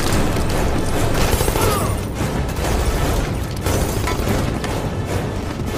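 Action-film soundtrack: dramatic score mixed with a loud, dense rush of noise and several heavy booms.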